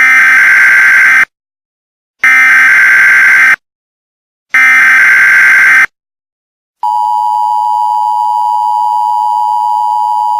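Emergency Alert System (EAS) tones. Three bursts of digital SAME header data, each about a second long with about a second's gap between them. About seven seconds in the steady two-tone attention signal begins, which announces the alert message to follow.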